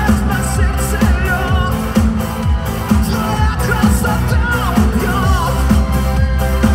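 Live pop-rock concert music: a male singer singing into a microphone over a full band, with a heavy, steady beat of about two strokes a second.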